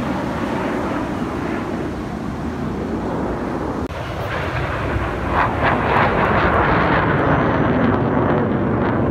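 Jet aircraft engines flying a smoke-trailing aerobatic display overhead: a continuous engine roar that dips briefly about four seconds in, then grows louder.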